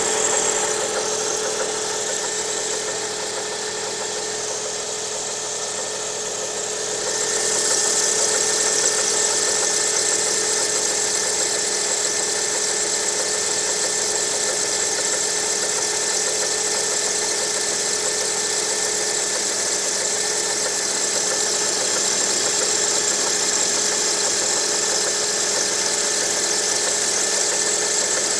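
Lada Priora engine idling with a knock that the owner places in the water pump area at the timing-belt end. It gets louder about seven seconds in, with a high steady whine coming in.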